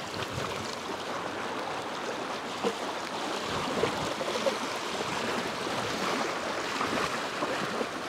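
Steady wash of surf and wind on the beach, an even hiss with no distinct events.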